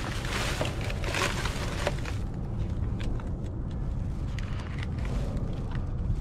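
Plastic trash bag rustling as it is pulled open, for about the first two seconds, then scattered light clicks and rattles of the small cardboard product boxes inside. A steady low rumble runs underneath.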